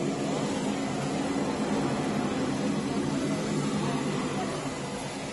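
Steady engine drone with a low hum made of several held tones, even throughout.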